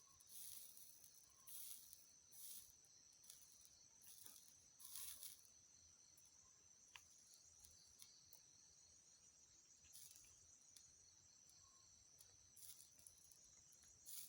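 Near silence: several short, faint hisses of flux sizzling as the soldering iron touches the IC legs, over a steady faint high-pitched whine.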